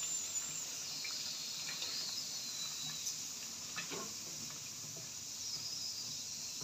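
Chicken and potato curry frying in ghee and yogurt masala, with a steady sizzle and a few soft knocks of a wooden spatula against the pot as it is stirred.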